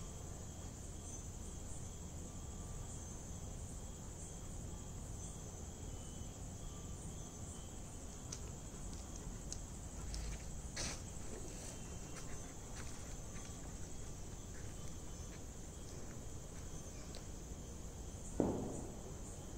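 Crickets chirring steadily over low background noise, with a few faint clicks; near the end comes one short, sharp sound that quickly dies away.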